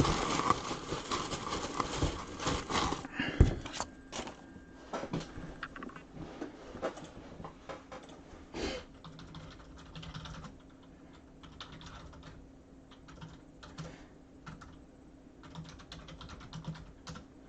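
Scattered light clicks and taps, dense with some rustling in the first three seconds, then sparser.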